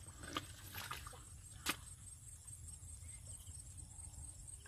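Footsteps wading through shallow muddy water: a few sharp squelches and splashes in the first two seconds, then only a faint low rumble.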